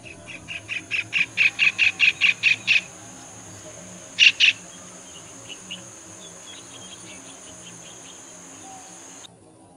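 White-throated kingfisher calling: a run of about a dozen sharp notes at roughly five a second, growing louder, then two loud notes about a second and a half later. A steady high-pitched buzz runs underneath.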